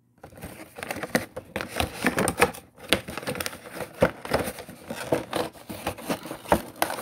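Toy packaging being handled and opened: the cardboard box and its clear plastic window crinkle and rustle, with many small clicks and scrapes.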